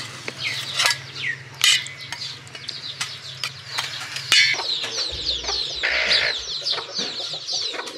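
Chicks cheeping in quick, high, falling chirps, sparse at first and crowding together from about halfway on, with a hen clucking among them. A few sharp clinks sound in the first half.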